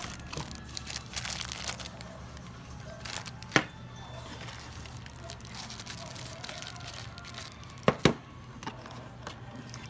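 Plastic bags and cardboard packaging rustling and crinkling as phone accessories are lifted out of a small carton, over a steady low hum. A sharp click comes about a third of the way in, and two more close together near the end.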